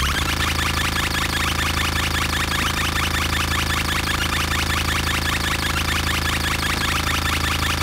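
Benjolin and Fourses analog synthesizers droning together: steady low held tones under a fast, buzzing stream of rising chirps in the upper range, a dense alarm-like electronic texture. The sound briefly drops out and shifts about a second before the end.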